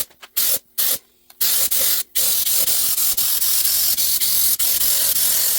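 Paint being sprayed: a few short hissing bursts, then a long continuous spray from about a second and a half in, broken once briefly.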